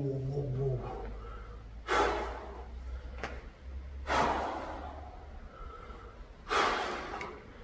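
A man breathing hard to catch his breath after a heavy dumbbell set: three loud, noisy breaths about two seconds apart, after a falling groan that trails off in the first second.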